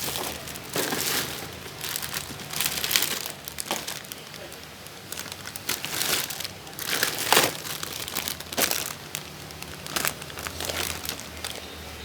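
Wrapping being crinkled and crumpled by hand, in irregular bursts.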